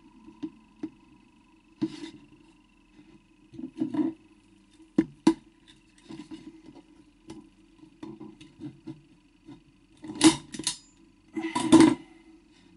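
Wooden press block being set and shifted by hand on a wooden leather-forming mould: scattered light knocks and taps, then two louder scuffs of wood near the end, about a second and a half apart.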